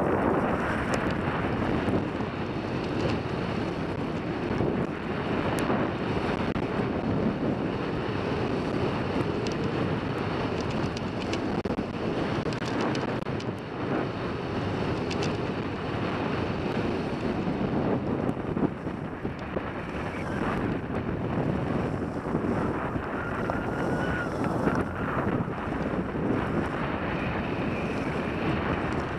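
Wind rushing steadily over a helmet-mounted action camera's microphone while skiing downhill at speed, mixed with the hiss and scrape of skis on packed snow.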